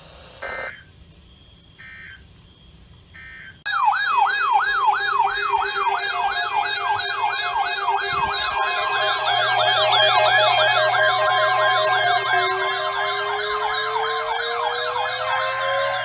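A few short, faint beeps, then about four seconds in several sirens start at once. A fast up-and-down warble, about four or five cycles a second, runs over steadier tones, and near the end another tone slowly rises as a siren winds up.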